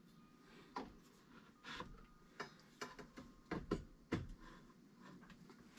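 Light clicks and knocks of copper pipe and fittings being handled and fitted together, about nine irregular taps over a few seconds.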